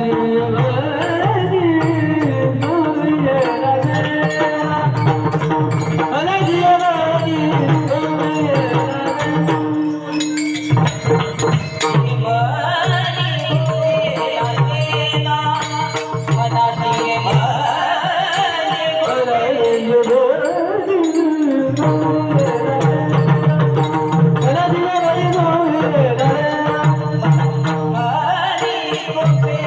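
A man singing a Marathi devotional song in the Bhairavi tune, his voice gliding through long ornamented phrases over a steady drone, with hand-drum and light percussion accompaniment.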